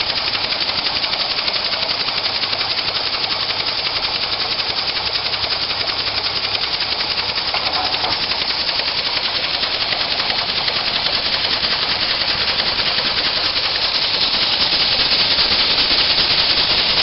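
Home-built Kauertz rotary engine running on compressed air: a rapid, even mechanical chatter of air pulses and moving parts, a little louder near the end.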